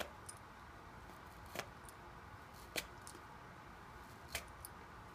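A dog chewing and picking apart a toy ball: sharp, short crunching snips of its teeth tearing the material, four main ones a second or so apart with a few softer clicks between.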